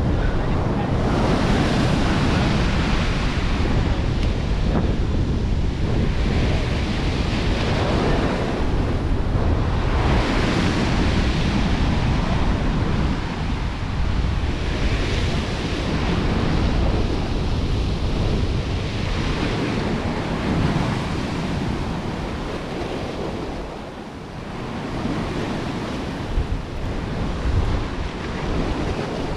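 Sea waves washing in and drawing back, swelling and easing every few seconds, with wind buffeting the microphone.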